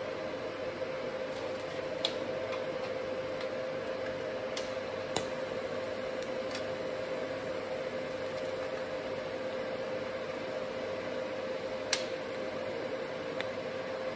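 Steady hum with a hiss from a Jäckle ProTIG 220 AC/DC TIG welding setup running during tack welding on steel, with a few sharp ticks now and then.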